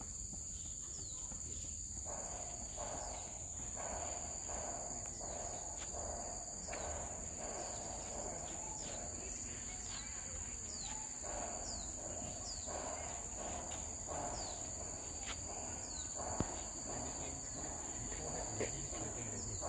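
Steady high-pitched insect chorus, with short falling chirps repeating about once a second and a lower pulsing sound repeating through most of it.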